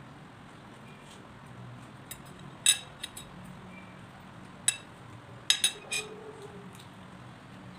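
Metal fork clinking against a ceramic bowl: a handful of sharp, short taps between about two and a half and six seconds in, three of them close together near the end.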